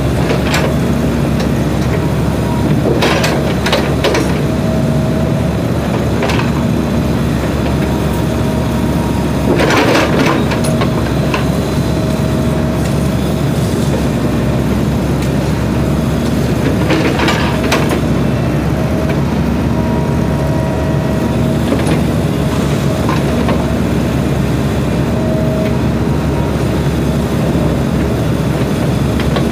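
SANY mini excavator's diesel engine running steadily while it digs, with a tone that comes and goes every couple of seconds as the hydraulics work. Several clanks and scrapes of the bucket, the biggest about ten seconds in and again around seventeen seconds.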